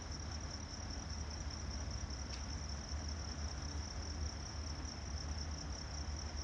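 Crickets chirping in a continuous high, pulsing trill over a steady low hum from the standing train's idling engine.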